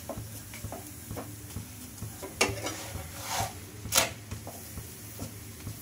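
A wooden spatula presses and scrapes a spinach paratha on a nonstick tawa over a light sizzle of oil. Two sharp knocks of the spatula on the pan come partway through, the louder one about four seconds in as the paratha is flipped.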